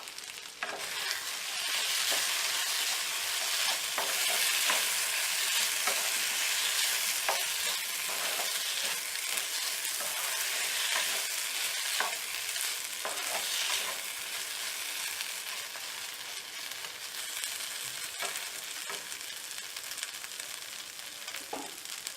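Boneless mutton pieces and fried onions sizzling in hot oil while being stirred, with scattered scrapes from the stirring. It starts about a second in and eases off somewhat in the second half.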